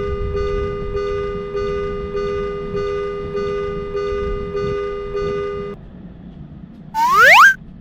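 Japanese railroad crossing alarm ringing in a steady two-tone ding, just under two strokes a second, over a low rumble, stopping about six seconds in. Near the end comes one loud, rising cartoon boing sound effect.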